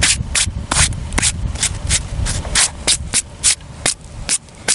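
Dirt being swept or scraped by hand across rock in quick, even strokes, about three a second, the strokes growing fainter near the end.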